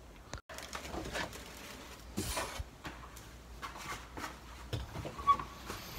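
Scattered light knocks, clicks and rustles of a person moving through a small room with a handheld camera.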